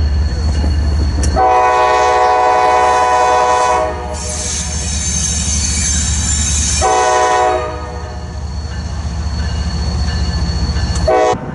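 CSX diesel freight locomotive passing close by with its horn sounding: a long blast about a second and a half in, a shorter one about seven seconds in and a brief toot near the end, over the engine's low rumble. Between the first two blasts a high squeal of wheels on the curving track.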